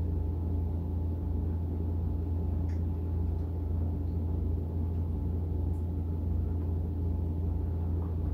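Steady low background hum with several faint steady tones above it, and a few faint soft clicks.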